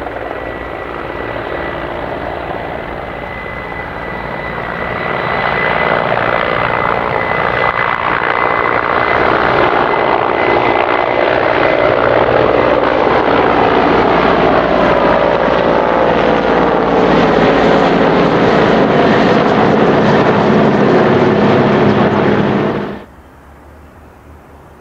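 Mi-35 helicopters flying past low, the whine and rotor noise of their twin TV3-117 turboshaft engines. The sound grows louder about five seconds in and its pitch falls as they pass. It cuts off abruptly near the end.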